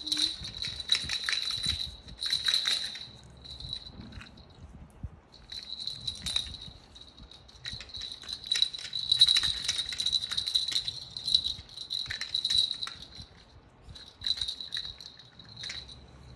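Plastic toy baby rattle being shaken, a bright jingling in irregular bursts that stops for about a second a few seconds in and briefly again near the end.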